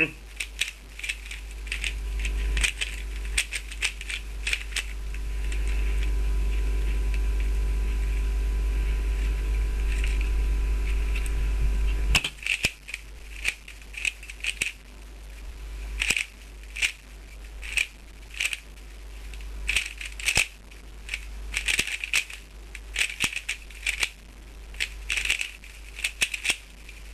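A Dayan GuHong 3x3 speedcube being turned, its plastic layers clicking and rattling. From about twelve seconds in there are fast clusters of turns, a speed solve of roughly fifteen seconds. Under the first twelve seconds a steady low hum runs, then cuts off abruptly.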